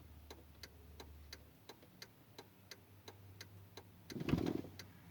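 A car's indicator flasher ticking faintly and evenly, about three clicks a second. A brief louder noise comes in about four seconds in.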